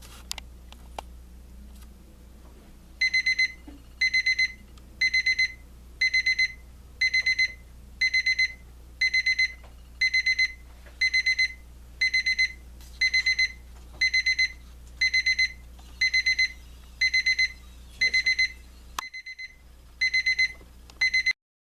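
Westclox battery-powered digital LCD alarm clock sounding its alarm: groups of about four quick, high-pitched beeps roughly once a second, starting about three seconds in and cutting off suddenly near the end.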